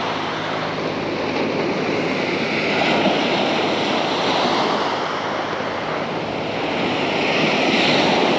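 Small waves breaking and washing up a sandy beach, a steady surf hiss that swells as a wave breaks near the end.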